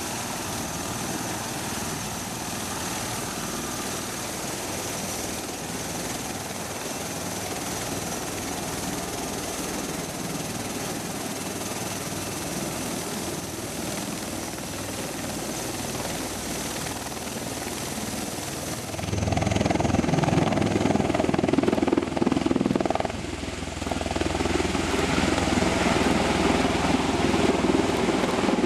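MV-22 Osprey tiltrotor running on the ground, its twin turboshaft engines giving a steady high-pitched whine over the turning proprotors. About two-thirds of the way in the sound turns suddenly louder and deeper, a roar of the proprotors as the Osprey lifts off vertically in helicopter mode.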